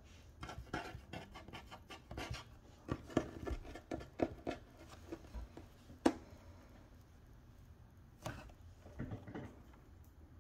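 Small scratching and clicking noises in a quiet room: a quick irregular run for the first few seconds, one sharp click about six seconds in, and a few more near the end.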